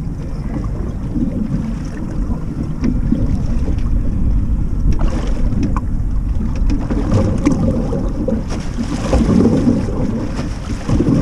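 Wind buffeting the microphone in a heavy, uneven low rumble, with choppy water washing against the hull of a small fishing boat.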